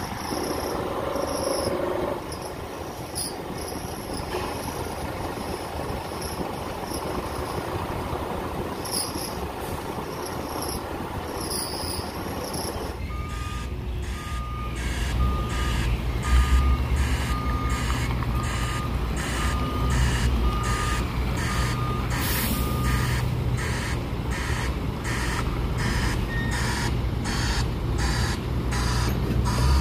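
Scania G440 tractor unit pulling a cement tanker trailer, its diesel engine running low and steady while a reversing alarm beeps about once a second. Before that, about the first half holds only a broad, steady background noise with faint insect chirps.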